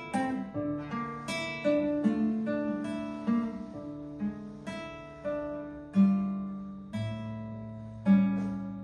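Solo classical guitar playing a slow piece: single plucked notes and arpeggios ringing over each other, several a second. Near the end it slows to a few louder, spaced chords that are left to ring.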